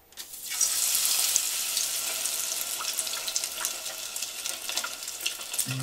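Batter-coated small fish going into hot oil for tempura and frying: a sudden dense sizzle with many small crackling pops that starts about a quarter second in and keeps going.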